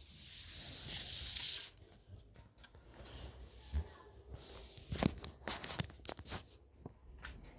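Cloth being torn by hand: one long rip lasting about a second and a half, followed by rustling fabric and a quick run of light clicks and knocks as it is handled.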